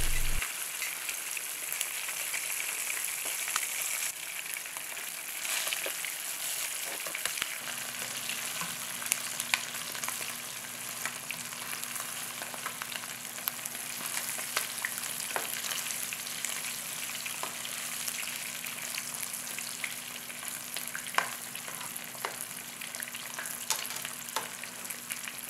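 Flour-dredged smelt frying in hot oil in a frying pan: a steady sizzle dotted with small crackles and pops.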